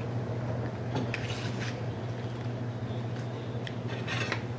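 Steady low hum of room tone, with a few soft, brief rustles and clicks.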